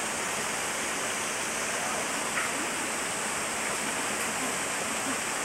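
Steady, even rush of running water, with no break or change.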